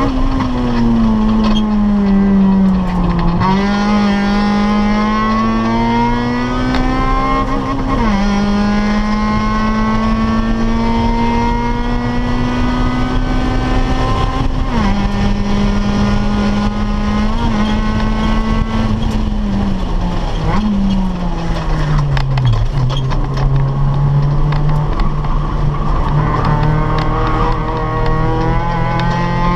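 1997 Acura Integra GS-R's 1.8-litre VTEC four-cylinder, fitted with a cold-air intake and full exhaust, heard from inside the cabin under hard acceleration on track. The revs climb steadily and drop sharply at each gear change, several times over, then fall away about two thirds of the way through, as if under braking, before building again near the end.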